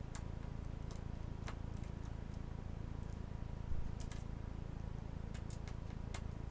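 Small screwdriver turning out the display-hinge screws of an Asus C300 Chromebook: scattered faint clicks and ticks of the bit working in the screw heads at irregular spacing, the strongest a little before the middle, over a steady low hum.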